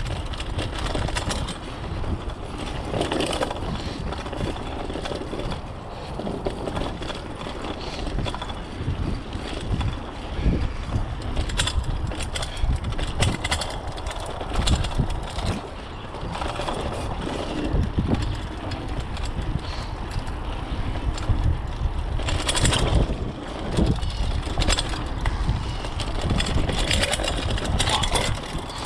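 Mountain bike ridden down a dirt forest singletrack, heard from on the bike: tyres rolling over dirt and leaf litter, with the bike knocking and rattling over bumps, sharpest around a third of the way in and again in the last third. A steady low rumble, typical of wind on the microphone, runs under it.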